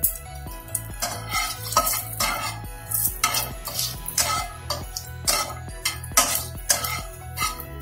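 Spatula stirring and scraping in a cooking pan, in short strokes about two a second that start about a second in, over background music.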